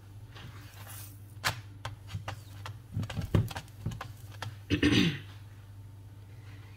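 Flat turner clicking and scraping on a nonstick tawa as a chapati is flipped and pressed down, a series of sharp knocks bunched in the middle, over a low steady hum.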